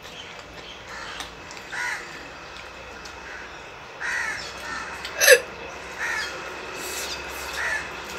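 A bird calling outside, short calls about every two seconds, and one sharp, loud hiccup a little past five seconds in, set off by eating hot green chillies.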